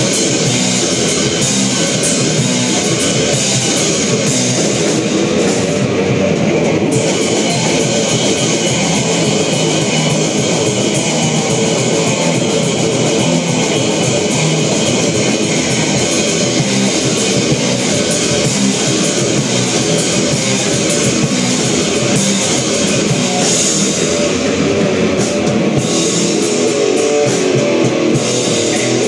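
Live thrash metal band playing an instrumental passage, with no vocals: electric guitar, bass guitar and drum kit, loud and dense.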